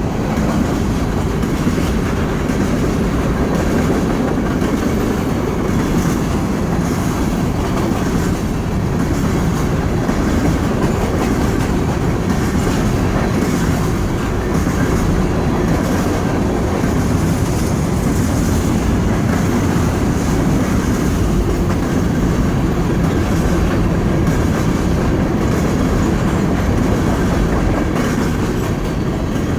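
Empty freight hopper cars rolling past, a steady loud noise of steel wheels running on the rails.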